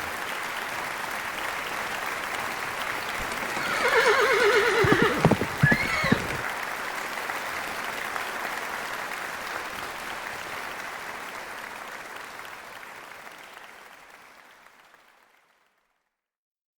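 A horse whinnying once, a loud wavering call that falls in pitch about four seconds in, over steady applause that fades away near the end.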